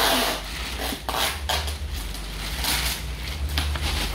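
Crinkling and rustling of a silver plastic wrapping bag and cardboard box being handled while packing, in uneven bursts, over a steady low hum.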